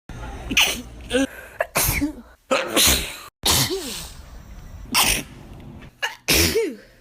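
A string of human sneezes, one after another: about six sudden loud bursts, some ending in a 'choo' that falls in pitch, with abrupt breaks between separate takes.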